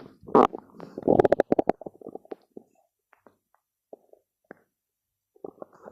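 Stomach growling: a loud gurgle near the start, then a run of rapid bubbling gurgles for about two seconds, a few scattered faint pops, and a brief quiet before it starts again near the end.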